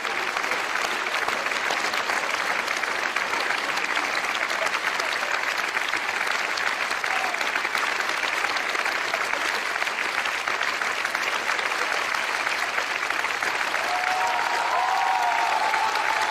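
Audience applauding steadily, dense clapping that grows a little louder in the last couple of seconds.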